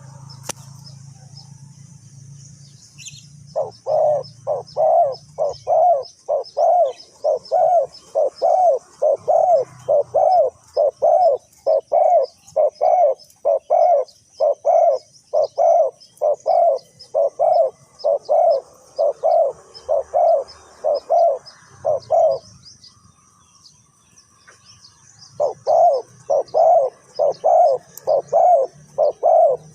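A dove calling a long, even series of low coo notes, about two a second. The series breaks off for a few seconds and then resumes, over faint high-pitched chirping in the background.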